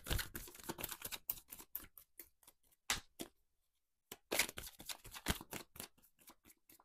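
A Thoth tarot deck being shuffled by hand: a run of quick, light clicks and flicks of card stock, coming in two bursts, one at the start and another just past halfway.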